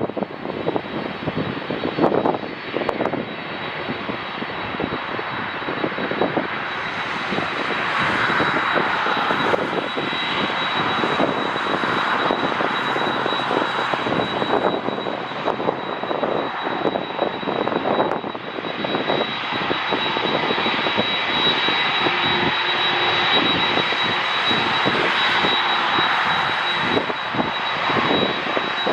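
Jet airliner engines running with a steady high whine and a rushing noise that swells and eases. Gusts of strong wind buffet the microphone throughout.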